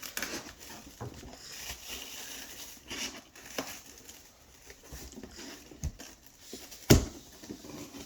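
Scissors cutting through cardboard: irregular crunching snips and rustling, with one sharp, loud snap about seven seconds in.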